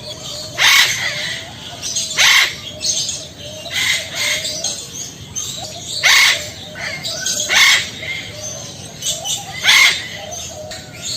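Male Eclectus parrot giving loud, harsh calls about seven times, one every second or two, calling to a female.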